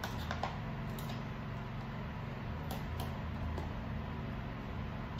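Steady low room hum, with a few faint clicks and taps of boiled eggs being peeled and handled by hand.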